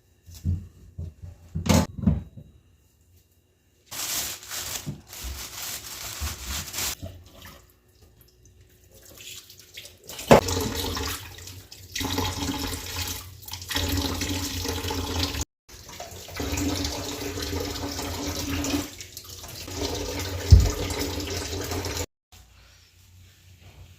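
Tap water running and splashing into a sink, with knocks and clatter of items being handled in the first seconds and a single thump near the end.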